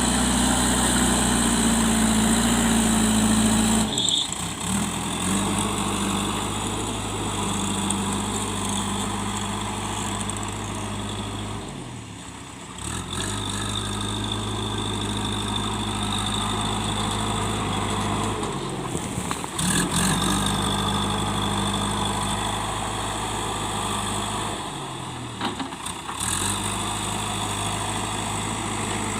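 Backhoe loader's diesel engine running steadily, its note dropping briefly and coming back up four times, about every six to seven seconds.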